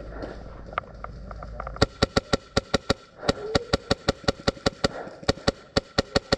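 Airsoft guns firing a rapid string of shots, about six or seven sharp cracks a second, starting about two seconds in.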